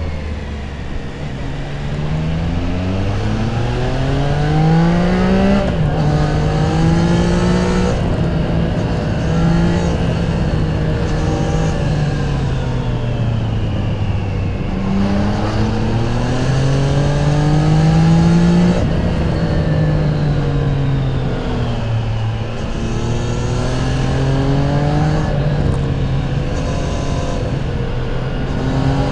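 Triumph Tiger 660 Sport's stock inline three-cylinder engine under way, its note rising with revs and dropping sharply at upshifts about six seconds in and again near nineteen seconds, then falling off as it slows before pulling up again.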